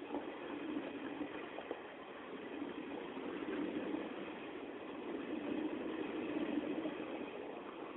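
Indian Railways passenger coaches rolling past close by at speed: a steady rumble of steel wheels on the rails with a few faint clicks.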